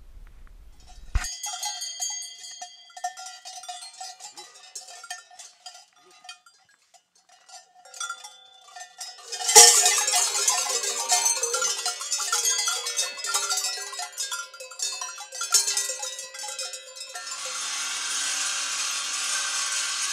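Many cowbells and bells hung on chains, ringing and clanking as they are struck and swung. About halfway through, a loud strike sets them jangling much more densely. Near the end a steady rasping, scraping noise takes over.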